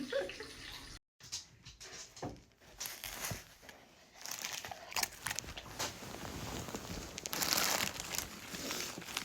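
Crinkling and crackling of packaging being rummaged and torn, in irregular scrunches and clicks, with a brief silence about a second in.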